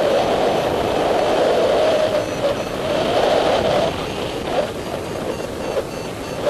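Wind noise from a paraglider's airflow rushing over the camera microphone in flight: a steady rush that eases off a little after about four seconds.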